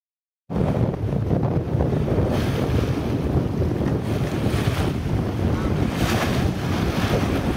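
Wind buffeting the microphone over waves washing past a sailing boat's hull at sea, cutting in suddenly about half a second in, with a brighter swash of water every couple of seconds.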